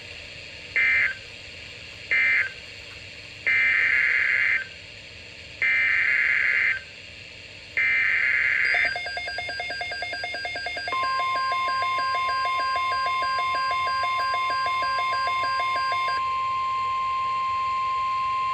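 Emergency Alert System signalling on NOAA Weather Radio: two short screeching digital data bursts closing the previous message, then three longer data bursts of the next message's header. A pulsing electronic beeping alarm follows, and about two seconds later the steady single-pitch weather radio warning alarm tone starts under it and carries on alone after the beeping stops.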